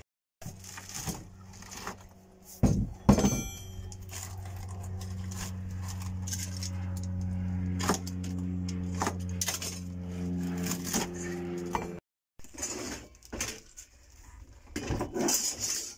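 Sealed chipboard flooring being chiselled, hammered and pried up off a van's ribbed metal floor: sharp knocks, a loud metallic clank about three seconds in, and crunching and clinking of broken chipboard pieces near the end. A steady low hum runs through the middle.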